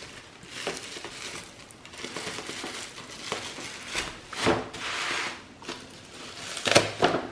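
Packing material being crinkled and pulled apart by hand while a parcel is opened, an uneven rustling and crackling with a few louder surges, the loudest near the end.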